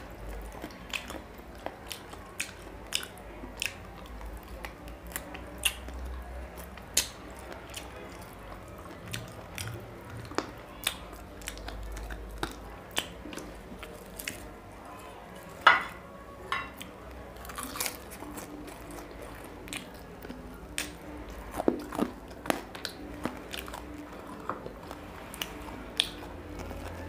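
Close-up chewing of mutton curry and luchi, with many irregular wet mouth clicks and one louder click about halfway through.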